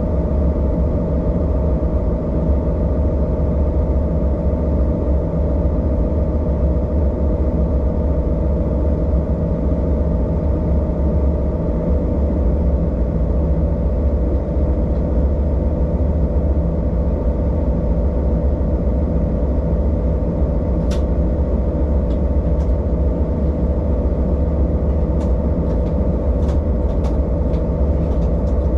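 ÖBB diesel railcar running steadily, heard from the driver's cab: a constant low engine drone with steady tones over the rumble of the wheels. One sharp click comes about two-thirds of the way through, and a run of lighter clicks near the end.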